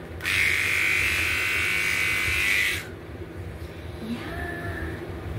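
Electric pet grooming clippers buzzing steadily, then switching off or lifting away after a little under three seconds.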